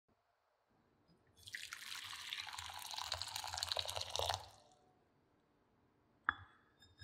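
Water running or pouring with a splashing, dripping sound for about three seconds, then a single sharp clink of a utensil or dish.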